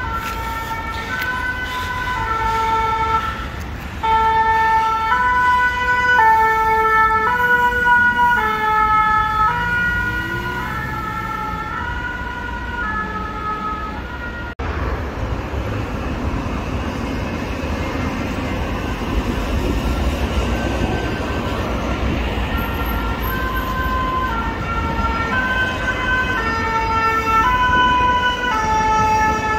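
French two-tone emergency-vehicle siren (the "pin-pon"), alternating steadily between a high and a low note, over road traffic. It breaks off abruptly about halfway through, leaving traffic noise, and the two-tone siren comes back about two-thirds of the way in and runs on to the end.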